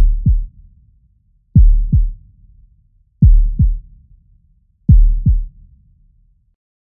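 Deep heartbeat-style double thumps of a song intro, lub-dub, four pairs about a second and a half apart, each fading with a low rumble.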